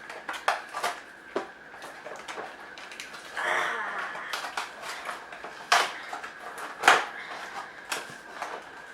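Packaging being opened by hand: scattered clicks and taps, a brief rustle about three and a half seconds in, and two sharper knocks near the end.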